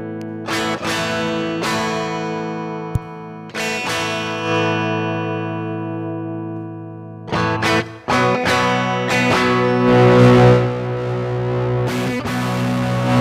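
Electric guitar played through effects for a tone check: chords struck and left to ring a few seconds apart, then from about seven seconds in a busier, louder passage with a gritty, distorted edge. A single sharp click about three seconds in.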